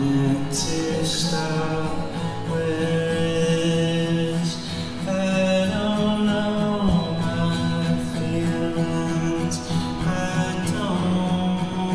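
A man singing in long, drawn-out notes to his own acoustic guitar.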